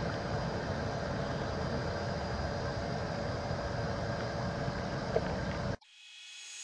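Steady outdoor background noise, with no distinct events, that cuts off suddenly near the end.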